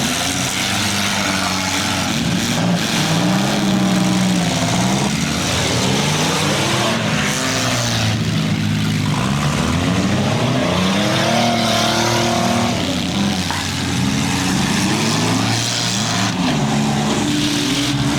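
Engines of several small cars revving up and down at once, their pitches rising and falling over one another, as they drive and ram in a mini-car demolition derby heat.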